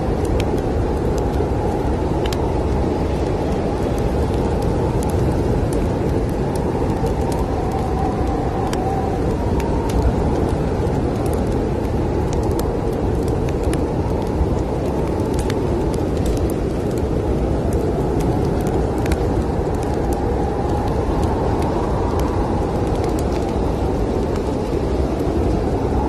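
Steady low rumble of snowstorm wind, with a faint whistle that swells and fades. Scattered sharp crackles and pops of a wood fire sit over it.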